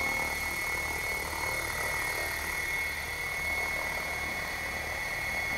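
Electric 700-size RC helicopter hovering at a low head speed of about 1100 RPM. It gives a steady high whine over the rotor's low, even beat.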